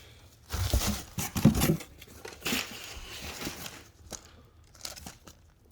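Packaging being pulled open and handled, with crinkling and tearing in a few loud bursts over the first two seconds, then quieter rustles and small knocks.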